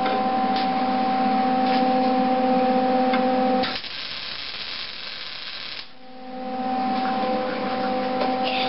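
MIG welder running with a steady electrical hum. About four seconds in, the hum gives way to roughly two seconds of hissing, then comes back.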